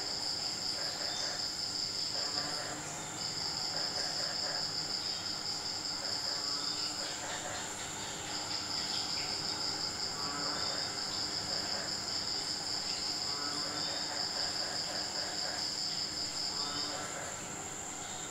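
Night insects trilling: one high, steady trill throughout, and a lower, pulsing trill that breaks off twice and stops near the end.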